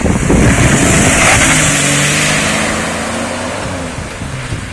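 Jeep Cherokee XJ ploughing through floodwater: its engine runs under throttle beneath a loud hiss of spray thrown up by the tyres. Both fade steadily as the Jeep drives away.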